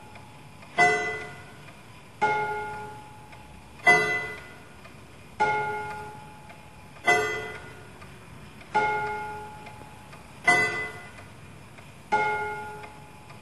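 Antique Art Nouveau wall clock striking the hour at six o'clock on two gongs. Two different tones alternate in a bim-bam pattern, one stroke about every second and a half, each ringing out and fading.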